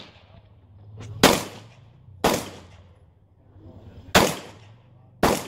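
Four handgun shots fired from behind cover, in two pairs about a second apart with a gap of roughly two seconds between the pairs, each crack trailing off in a short echo.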